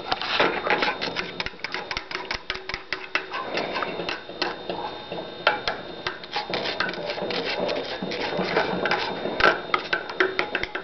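Metal spoon stirring and scraping a thick, pasty mix of maple syrup and diatomaceous earth filter aid in a cup, giving rapid irregular clicks and scrapes.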